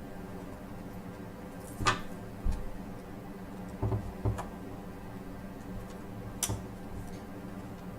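Scattered small clicks and taps of a screwdriver and tiny screws against a laptop's plastic screen frame while a screw is being driven in, about five separate knocks, the loudest about two seconds in.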